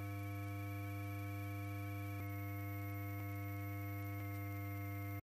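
A steady low electrical hum with a buzzy edge, with faint clicks about once a second in the latter half; it cuts off suddenly just before the end.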